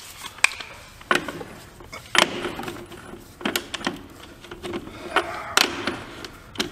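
Cordless drill with a socket running in short bursts to spin off the axle-shaft flange nuts on a truck's rear wheel hub, with several sharp metal clinks in between.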